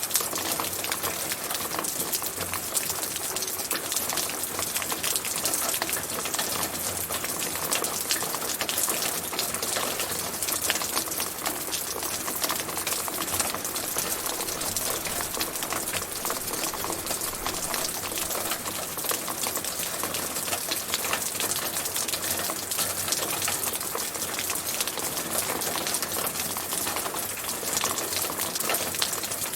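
Steady rain falling: a dense, even hiss made of countless small drop hits, unchanging throughout.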